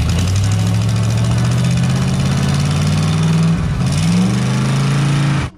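Carbureted V8 engine running on a bare truck chassis, blipped by hand at the carburetor: a steady run, then about three and a half seconds in the pitch dips, rises and settles back. It cuts off suddenly near the end.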